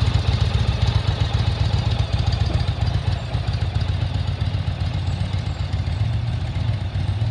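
2020 Indian Roadmaster's air-cooled Thunder Stroke 116 V-twin idling steadily, a low, even pulsing exhaust note.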